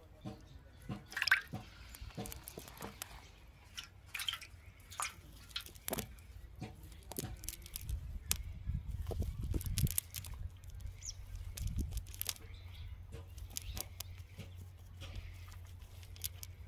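Scattered small clicks, drips and plops as catch is picked out of a mesh fishing net by hand and dropped into a bowl of water, with rustling of the net. A low rumble of handling noise runs through the middle.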